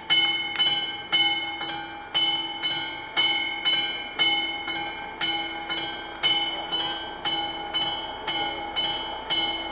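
Level-crossing warning signal's classic mechanical bell (AŽD 71) ringing at about two strokes a second, each stroke ringing out and fading before the next. The crossing is in its warning phase, signalling an approaching train.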